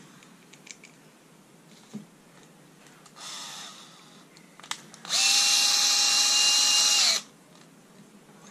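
Green Bosch cordless drill-driver driving a screw to fasten a lens holder back in place: a short run, then a steady whining run of about two seconds that stops suddenly.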